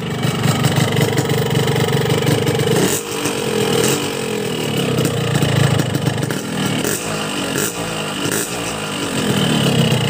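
A cold two-stroke motorcycle engine idles, then is revved in short blips from about three seconds in, the pitch rising and falling each time.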